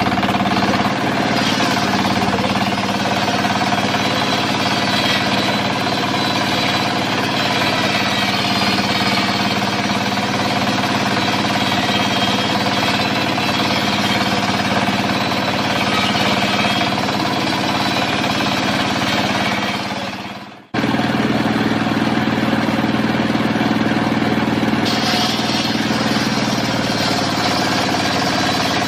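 Stationary single-cylinder diesel engine running steadily, belt-driving a circular saw blade that rips through an acacia log. The sound dips away about 20 seconds in and cuts straight back in.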